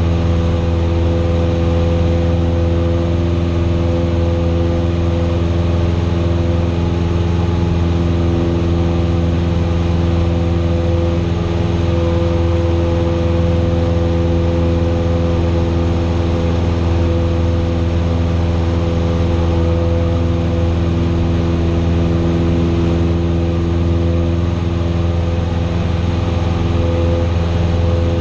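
Cessna 172's piston engine and propeller droning steadily in flight, heard from inside the cabin.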